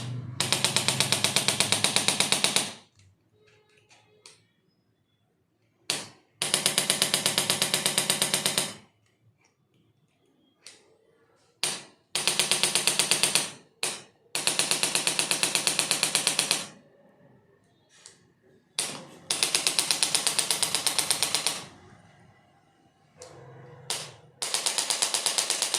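A handheld percussion tool, of the kind chiropractors use on the neck, fires in six bursts of about two seconds each. Each burst is a rapid run of evenly spaced mechanical taps, and most start just after a single sharp click.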